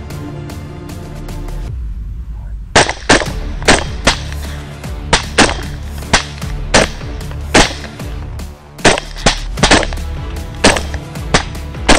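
Rapid semi-automatic rifle fire at feral hogs: about fifteen sharp shots in quick, uneven strings, starting about three seconds in, over background music.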